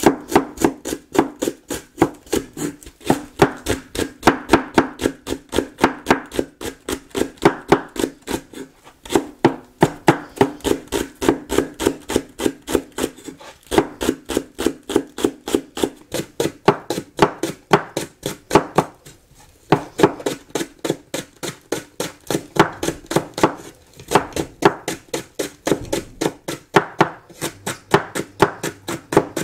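Kitchen knife rapidly slicing a Japanese long green onion on a wooden cutting board: a steady run of crisp knocks, about three a second, each stroke through the stalk ending on the board, with a few short pauses.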